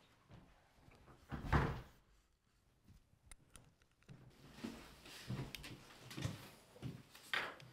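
A door thudding shut about a second and a half in, then a run of softer knocks and bumps, the last one the loudest.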